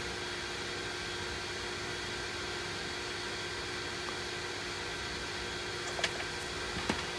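Steady background hum and hiss, like a fan or electrical equipment running in a small room. A few light clicks come near the end as multimeter test probes are handled.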